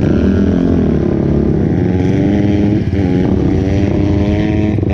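Sport ATV engine running hard under acceleration. Its pitch climbs, dips briefly about three seconds in, then climbs again.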